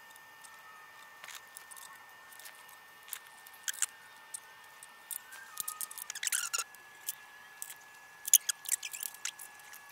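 Steel scribe and combination square scraping and tapping against a steel plate while lines are marked out: scattered short scratches and light clicks, a few more clustered in the second half, over a faint steady whine.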